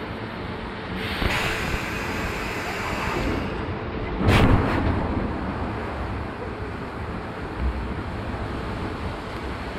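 Amusement-park ride car rumbling along its track through a tunnel. About a second in, a hissing spray of mist starts and lasts a couple of seconds. About four seconds in comes a sudden loud blast, the ride's special effect.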